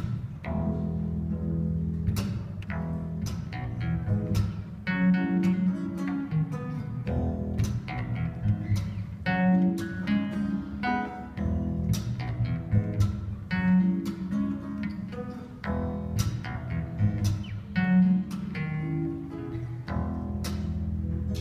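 Instrumental break on acoustic guitar with a bass guitar, a run of plucked guitar notes over low bass notes.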